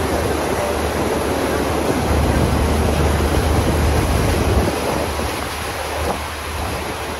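Steady rush of water and wind from a passenger boat underway on a lake, over a low engine rumble that eases a little past halfway.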